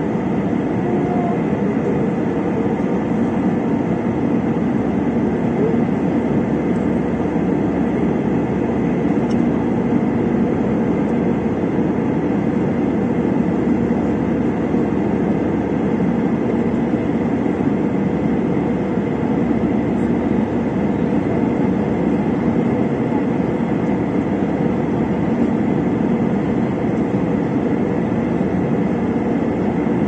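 Jet airliner cabin noise in flight, heard from a window seat over the wing: the steady, even noise of the engines and rushing airflow, with a faint steady high tone.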